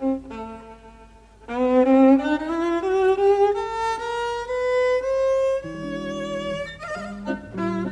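Jazz violin playing live: after a soft start it swells into a slow phrase of held, vibrato-laden notes that climb step by step. Lower guitar chords come in behind it a little past halfway.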